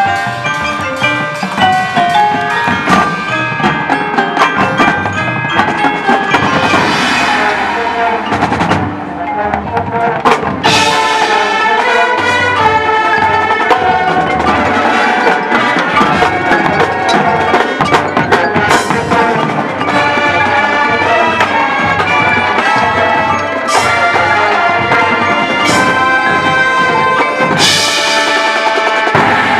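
High school marching band playing its field show, with the front ensemble's mallet percussion (marimba, glockenspiel, chimes) prominent over drums.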